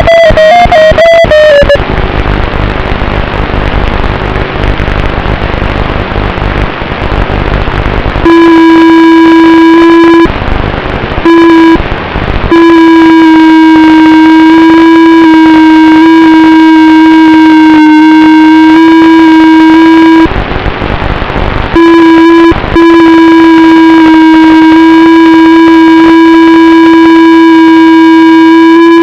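Music with distorted electric guitar and synthesizer: a dense rhythmic passage, then a long held note that breaks off briefly a few times.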